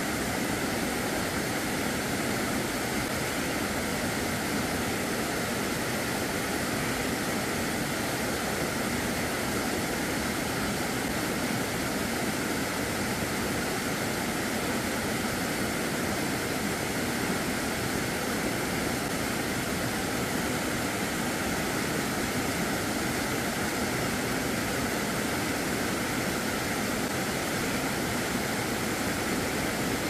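Steady, unbroken rush of water falling over a waterfall.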